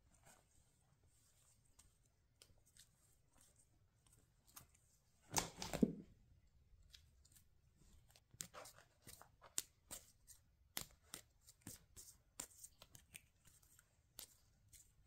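Faint, scattered light clicks and scratches of kittens' paws and claws batting at a stiff strip toy, with a louder rustle and thump about five and a half seconds in.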